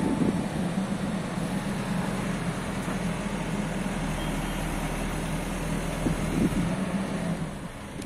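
MST M642 Plus backhoe loader's diesel engine running steadily, easing off slightly near the end.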